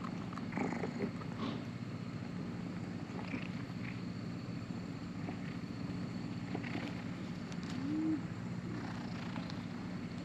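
A tabby cat purring steadily as it is stroked on a lap. A brief rising-then-falling note sounds about eight seconds in.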